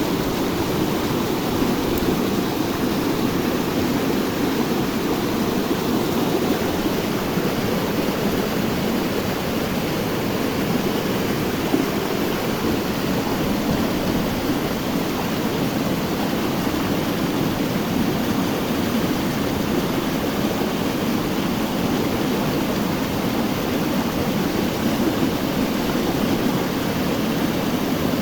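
Flowing river water rushing steadily, a constant full roar.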